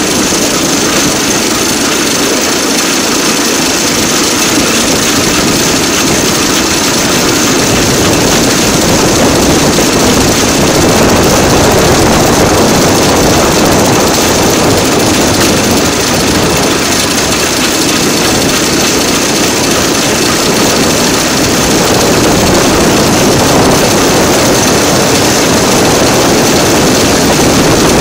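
DL2 motor draisine travelling along the rails, its engine running steadily together with the noise of its wheels on the track; the sound grows a little louder about ten seconds in.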